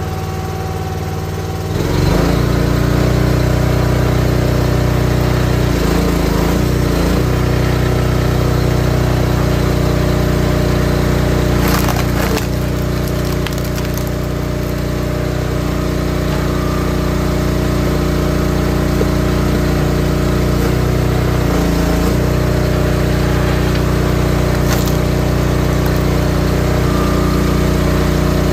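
Small gas engine of a Wolfe Ridge 28-ton high-output hydraulic log splitter running steadily, louder from about two seconds in, its note shifting briefly a few times as it works. Sharp cracks of wood splitting come around the middle and again near the end.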